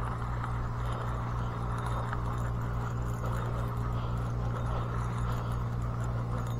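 Fishing reel being cranked in a steady retrieve: a continuous low whirring hum with a regular low pulse from the turning handle.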